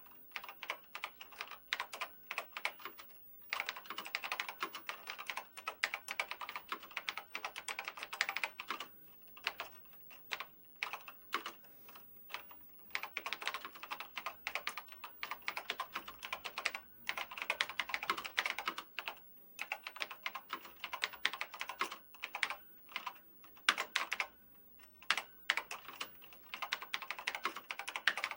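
Typing on a telex teleprinter keyboard: fast runs of key clicks broken by short pauses, with a stretch of slower, scattered keystrokes about a third of the way through.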